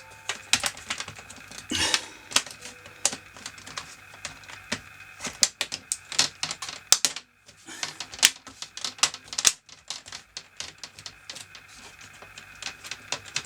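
Plastic screen bezel of a Dell Inspiron 15 3000 laptop being pressed back onto the lid, its clips snapping into place in many sharp clicks at an irregular pace.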